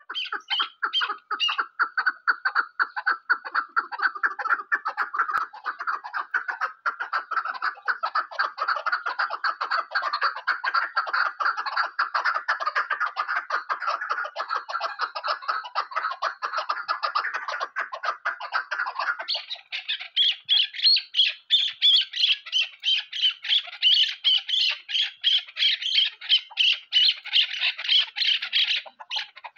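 Chukar partridge calling in a long, unbroken series of rapid, repeated chuck notes, several a second. A little past two-thirds of the way through, the calls jump higher in pitch and grow somewhat louder.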